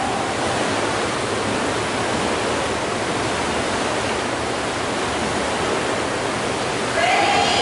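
Steady rush of churning water in an indoor paddling tank as the paddlers pull their strokes through it.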